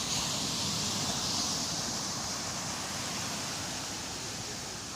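Calm sea waves washing onto the shore: a hiss that swells at the start and slowly fades away.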